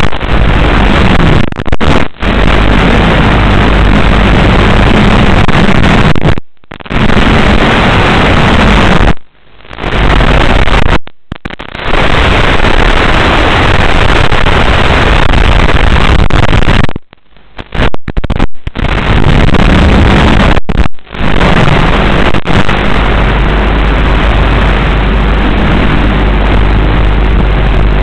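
Loud, steady hiss of static from an analog FPV video link's audio channel, broken by several sudden brief dropouts.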